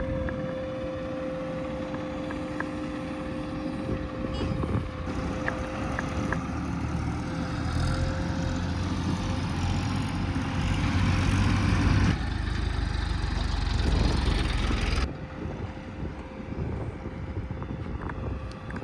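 Diesel engines of earthmoving machinery running, with a steady held tone over the low engine sound. The sound changes abruptly about twelve seconds in and drops sharply about fifteen seconds in.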